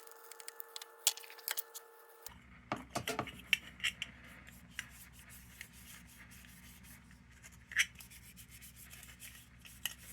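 Cloth rubbing oil onto a lantern's bare steel, with light scrapes, small clicks and a few short squeaks. A faint steady hum runs through the first two seconds.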